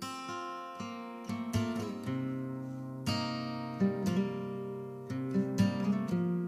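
Acoustic guitar music: plucked chords, a new one about every second, each left to ring and fade.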